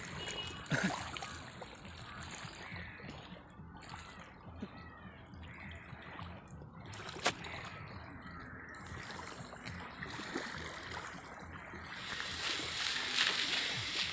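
Small waves lapping at a muddy lakeshore, a soft steady wash, with a single sharp click about seven seconds in and a rise in hiss near the end.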